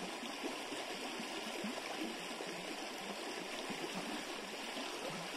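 Shallow river current flowing steadily over stones around a wading angler.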